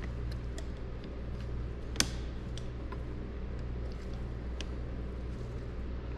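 Light clicks and taps of small parts being handled as the power antenna mast is fitted into its motor and spool housing, with one sharper click about two seconds in, over a steady low hum.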